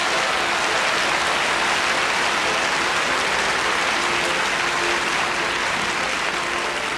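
Theatre audience applauding: a dense, steady wash of clapping, with faint held music notes showing through underneath at times.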